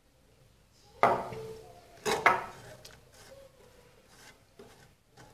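A spoon knocking against a cooking pot: a sharp clink with a short ring about a second in, a second one just after two seconds, then a few fainter taps.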